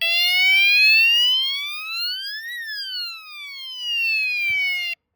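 Police-light siren speaker sounding one wail: a tone rises steadily for about two and a half seconds, falls back down over the next two and a half, and cuts off suddenly near the end.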